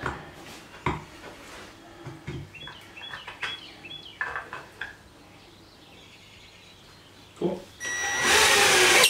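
Cordless drill-driver running for about a second near the end, driving a screw into the wooden bunk-bed ladder. Before it, scattered knocks and clicks of the wooden parts being handled.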